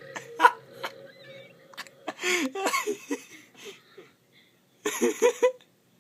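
A young woman coughing and gasping in short fits, out of breath and sore in the chest from forcing out burps. A sharp click about half a second in, a few smaller clicks around it.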